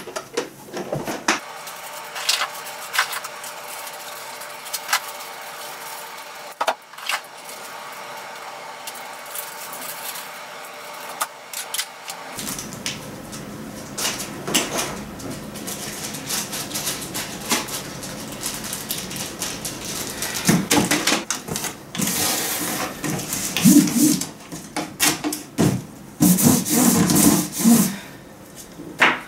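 Plastic toys and packaging being handled and put into a cardboard box: scattered clicks and clatters, getting busier about halfway through, with louder bursts of rustling plastic near the end.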